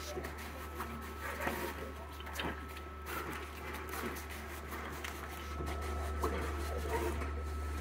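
Scorpio SCR35PL label finisher running a job: its CE5000-40 cutting plotter and feed rollers working as the label web feeds through, with a steady hum and a thin steady tone under scattered clicks and paper rustles. The hum gets louder about five and a half seconds in.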